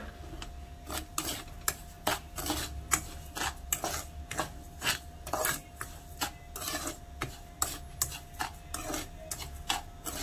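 Stainless steel spoon stirring and scraping dry brown sugar and sesame seeds around a nonstick frying pan, in quick gritty strokes about two or three a second, starting about a second in.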